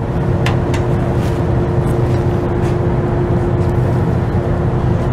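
Commercial kitchen extraction fans running with a steady hum and drone, with a few light clicks.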